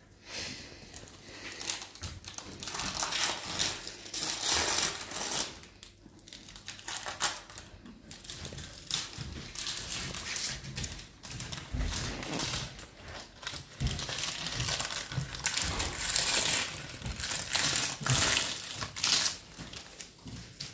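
Stiff wrapping crinkling and tearing as it is pulled off a new-in-wrap Lee Enfield No. 4 Mk 2 rifle, in uneven spells of rustling and crackling.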